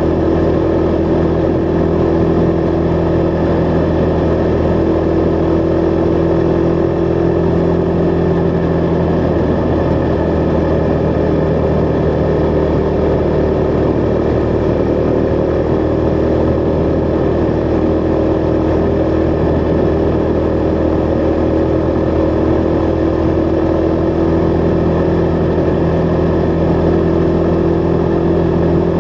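Husqvarna Vitpilen 401's single-cylinder engine running at a steady cruise, its pitch dipping and wavering slightly in the middle before settling again, over a constant rush of wind.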